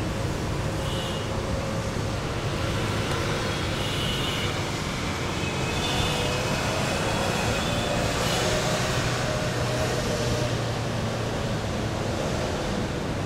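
Distant passenger train running along the railway, heard as a steady rumble mixed with road-traffic noise, with a few faint high tones.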